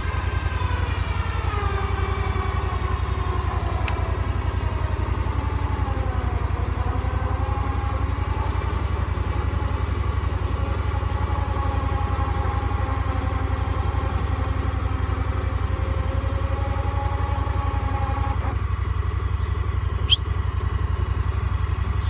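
Honda Pioneer UTV engine idling while its electric winch whines under heavy load, pulling on a cherry tree stump. The winch's pitch sags over the first few seconds, then holds steady until the winch stops about 18 seconds in.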